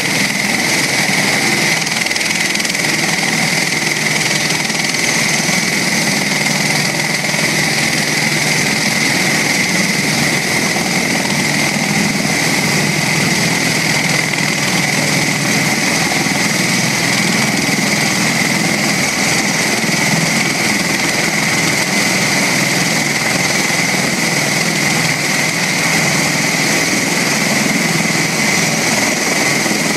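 MV-22 Osprey tiltrotor's twin turboshaft engines and proprotors running steadily, a loud unchanging engine noise with a constant high whine.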